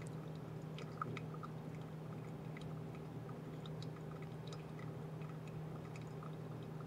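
Faint, irregular drips and small ticks of brewed coffee draining through a Kono cone dripper during the drawdown, over a steady low hum.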